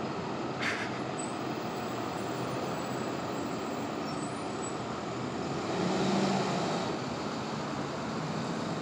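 Steady street traffic noise, with one vehicle passing louder about six seconds in.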